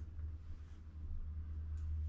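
Low steady hum with faint rustles and a light click near the end as plastic water pipe is handled.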